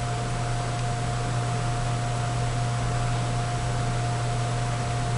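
Steady hiss with a low electrical hum and a thin, constant whine, unchanging throughout: the background noise of the recording, with no distinct event.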